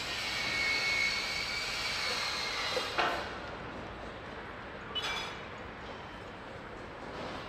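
Outdoor construction-site and city background noise: a steady wash of distant machinery and traffic. A faint high whine runs through the first few seconds, and the sound changes suddenly about three seconds in and again about five seconds in.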